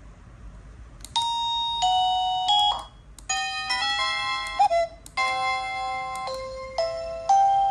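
Wireless doorbell receiver playing electronic chime melodies of clear stepped notes, starting about a second in. The tune breaks off and a new one begins twice, at about three and five seconds.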